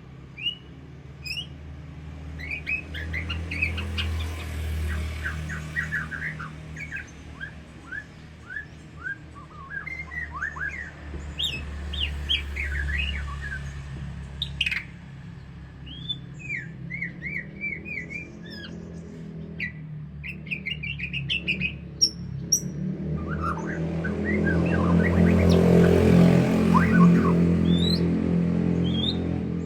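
White-rumped shama singing a varied song of quick chirps, trills and sliding whistles over a steady low hum. A louder rushing noise swells in near the end.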